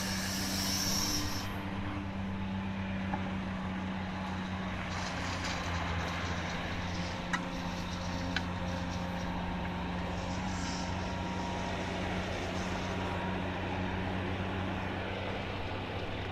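Heavy diesel engine of a Cat 345D L excavator running steadily under work, with a constant low hum and a few faint clicks.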